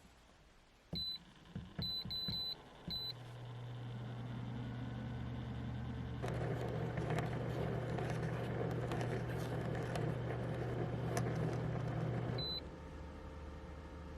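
A few short electronic button beeps, then a steady low electric hum that starts up and runs with an added rushing noise. It stops after a single final beep near the end.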